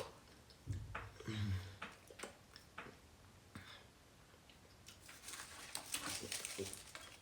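A person eating fufu close to the microphone: soft wet chewing, lip smacks and mouth clicks, with two short low hums about a second in. The chewing grows busier near the end.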